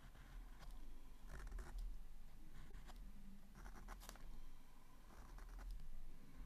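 A pen scratching on paper as lines are drawn, in a series of short strokes.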